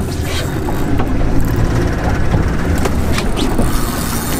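Boat's outboard motor running steadily.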